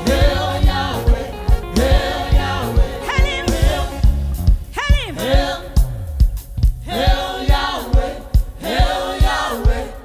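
Gospel song with a choir of voices singing over a steady drum beat.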